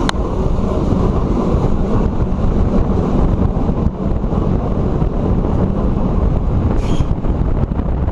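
Euskotren UT200 electric train running at speed, heard at an open window: wind buffeting the microphone over a steady rumble from the running gear. A sharp click right at the start, and a brief hiss a little before the end.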